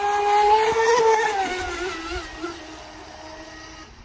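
Electric RC speedboat's TP Power 4070 brushless motor on 6S whining at full speed on a pass. Its pitch climbs a little about a second in, then drops and fades as the boat runs away.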